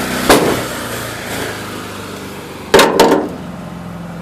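An engine idling steadily, with three sharp bangs over it: one about a third of a second in and two close together near the three-second mark.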